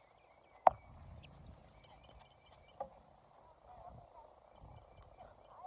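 Small birds chirping over and over in the background, broken by one sharp, loud knock less than a second in and a fainter knock near three seconds.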